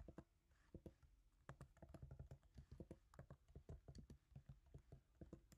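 Faint typing on a computer keyboard: an irregular run of quick key clicks as an email address is typed in.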